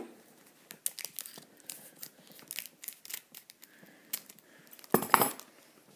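Scissors snipping open a trading-card packet: a string of small clicks and crinkles, with one louder cut about five seconds in.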